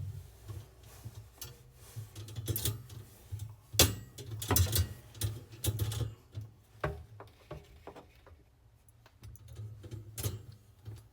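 Irregular clicks, clinks and light knocks of metal shelf parts being handled and fitted together, the loudest knock about four seconds in, quieter toward the end.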